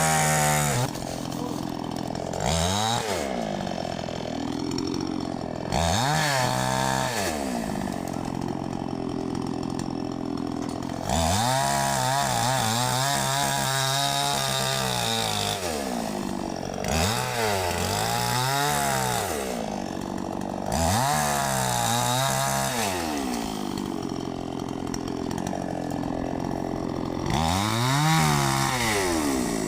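Chainsaw revving up and dropping back to idle again and again, about eight times, with one longer run at high revs lasting several seconds in the middle.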